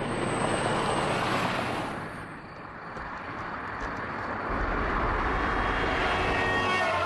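Cars driving past on a road: one passes about a second in, and another swells up and goes by in the second half.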